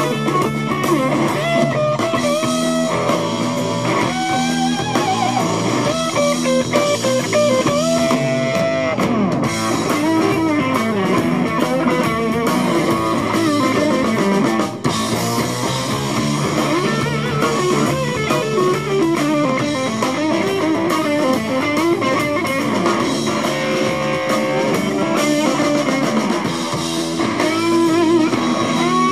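Live rock band playing: a lead electric guitar line with many bent, sliding notes over bass guitar and drums.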